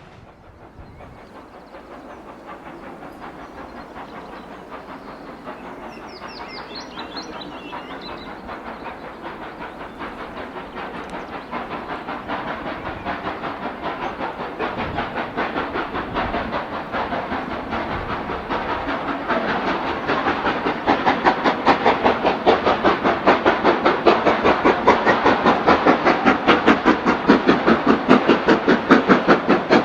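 LMS Stanier Black 5 4-6-0 steam locomotive working under steam and drawing closer, its exhaust beats coming in a fast, even rhythm that grows steadily louder.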